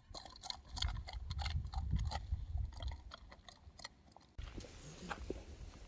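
A dog eating from a bowl, with quick irregular crunching and clicking as it chews. The crunching stops abruptly about four seconds in, giving way to a quieter background with a few faint clicks.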